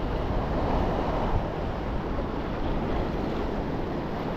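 Sea waves washing against the shore, with wind rumbling on the microphone: a steady wash of noise with no distinct events.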